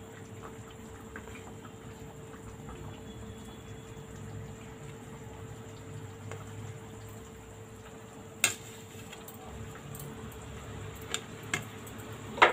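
Vegetable broth simmering quietly in a kadai on a gas stove while small pieces of hand-rolled dough are dropped in. One sharp clack about two-thirds through, then a few light ticks near the end.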